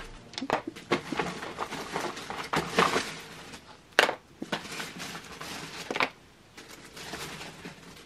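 Packaging being handled: irregular crinkling and crackling of wrapping and cardboard, with sharper knocks about four and six seconds in.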